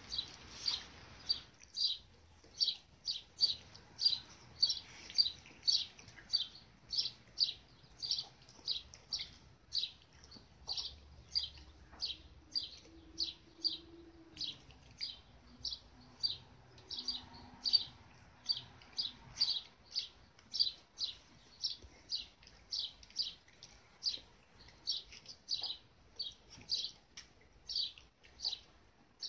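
A small bird chirping over and over, short high chirps about twice a second.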